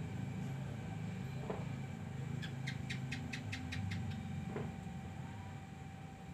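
Distant firecrackers: a low rumbling 'jedag-jedug' booming that goes on throughout. About two seconds in, a quick even run of about nine sharp high clicks, some five a second, lasting under two seconds.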